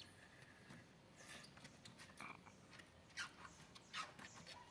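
Faint, scattered taps and scuffles of kittens' paws and claws on a tiled floor as they play, about one small tap a second.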